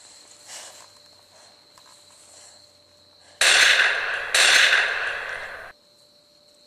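Two loud bangs about a second apart, each a sudden burst of hissing noise that dies away, ending in an abrupt cut-off about two seconds after the second. A steady high insect-like trill runs underneath.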